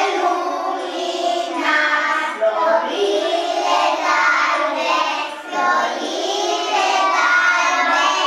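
A group of young kindergarten children singing a Romanian Christmas carol (colindă) together in unison.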